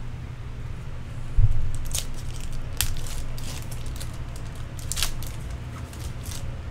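Foil trading-card pack wrapper crinkling in the hands and being torn open, in scattered sharp crackles. A dull thump about a second and a half in is the loudest sound.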